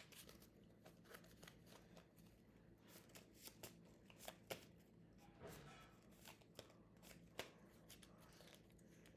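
Faint shuffling of a deck of Exploding Kittens playing cards: soft, irregular clicks and rustles as the cards are mixed by hand.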